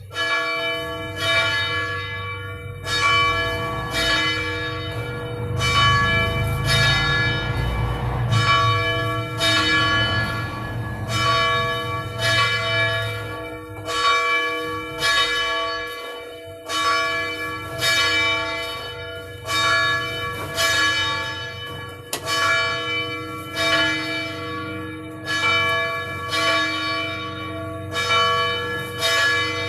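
A church bell ringing, struck about once a second, each stroke ringing on into the next.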